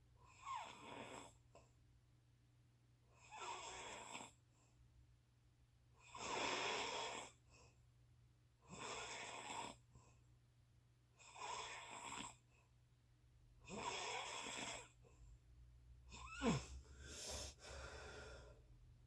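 A sleeper snoring in a steady rhythm, one snore about every two and a half seconds, seven in all. The last snore, near the end, is the loudest and has a sharp falling squeak in it.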